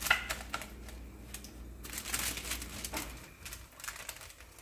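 A plastic sheet crinkling and a plastic spoon scraping and tapping on the dough as it is shaped, with irregular soft rustles and clicks that thin out toward the end.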